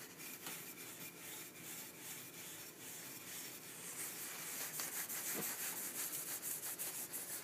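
Cloth rubbing dark stain onto a wooden wand turning on a lathe: a steady rubbing hiss that grows louder about four seconds in.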